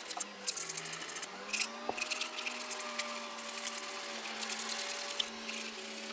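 Strip of sandpaper pulled back and forth, shoeshine-style, around a carved tupelo wood lure blank: a dry rasping hiss in quick strokes with short breaks.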